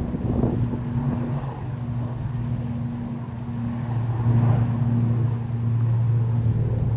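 A motor droning steadily at a low pitch, with rough wind rumble on the microphone; the drone grows a little louder about four seconds in.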